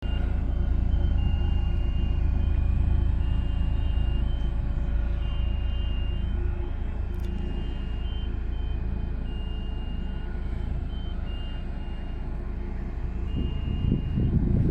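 Big bulldozer's diesel engine running steadily with a low rumble, with short reversing-alarm beeps of uneven length sounding on and off.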